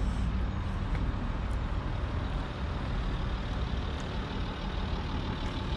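Land Rover Discovery 3's 2.7-litre TDV6 V6 diesel engine idling steadily.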